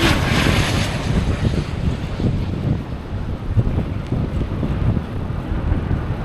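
Wind buffeting the microphone of a moving cyclist: a steady, heavy low rumble, with a brighter hiss in the first second.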